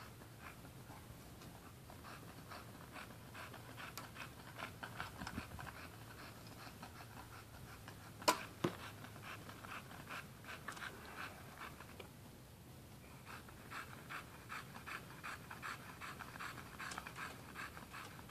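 Bulldog panting hard and fast, several pants a second, in bouts with short pauses. About eight seconds in, a sharp snap is followed a moment later by a second, smaller one.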